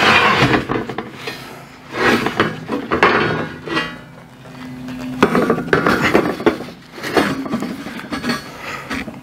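Heavy steel plates being slid, turned and set down on a steel welding table and I-beam, clanking and scraping metal on metal several times.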